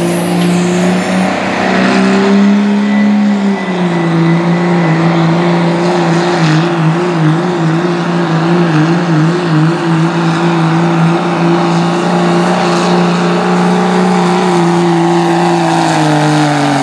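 1998 Dodge Ram's 5.9-litre Cummins turbodiesel straight-six running flat out under load while pulling a sled, with a steady high engine note and a turbo whistle. The pitch steps down slightly a few seconds in and wavers for a few seconds mid-pull.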